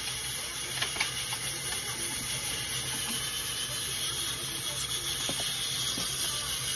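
Garlic-and-herb seasoning paste sizzling gently in hot oil in a stainless steel pot: a steady hiss with a few faint crackles.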